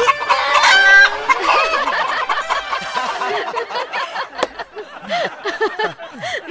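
Clucking like hens: many short calls overlapping one another, with a longer crow-like call about a second in.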